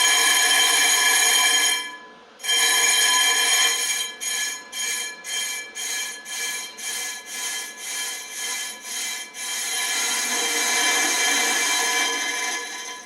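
Brake disc of a 2017 Kia Sportage being machined on a disc lathe: a steady, high-pitched cutting squeal with many overtones. It breaks off briefly about two seconds in, pulses about twice a second for several seconds, then runs steady again before stopping at the end.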